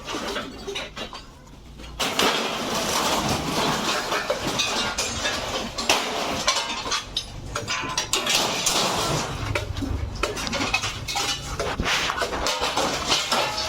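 Dense metallic clattering and clinking that starts suddenly about two seconds in and keeps going.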